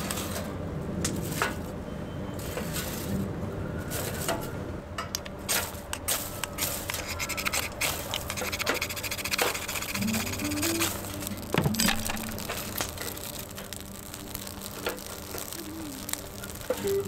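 Dry fern and grass tinder rustling as it is handled, then a run of quick scrapes as a knife is drawn along a ferrocerium fire-starter rod to throw sparks into the tinder, which catches and begins to crackle near the end.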